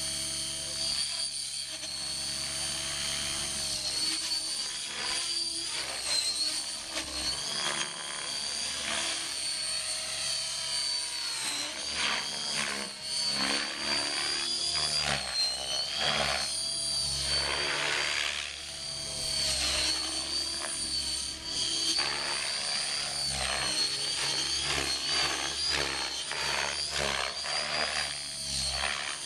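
Radio-controlled helicopter flying freestyle aerobatics: a high motor and rotor whine that keeps rising and falling in pitch, with the sound swelling and sweeping as the machine flips and passes.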